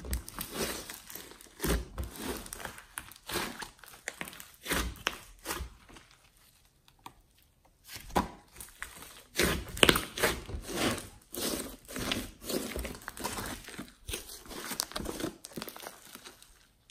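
Hands squeezing, stretching and folding a large glossy slime mixed with clay and glitter: irregular sticky squishing and crackling in uneven spurts, with a short lull about six seconds in.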